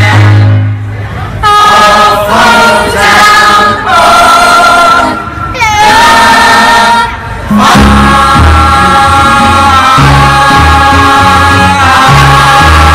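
Musical-theatre cast singing together in long held notes, in phrases broken by brief pauses. A low instrumental accompaniment comes in strongly about eight seconds in.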